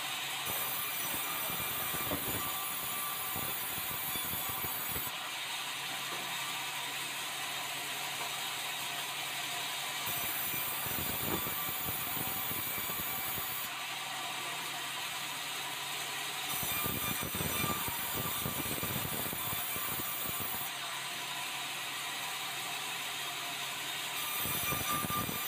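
Sawmill saw running and ripping red meranti boards as they are fed along the roller table. It makes a continuous mechanical whine and rasp whose tone shifts every few seconds as cuts start and finish.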